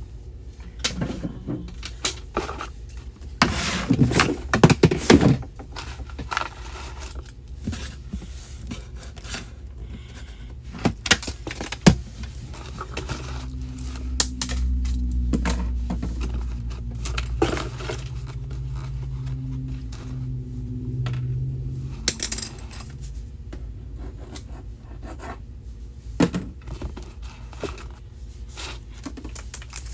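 Clattering, knocking and scraping of small hard objects being handled as a storage drawer is cleaned out. There is a loud cluster of knocks a few seconds in and a low hum through the middle.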